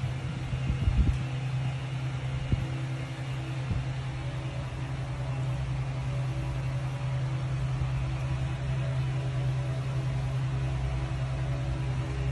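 Steady low mechanical hum, like a running fan or appliance, with a few soft knocks in the first few seconds.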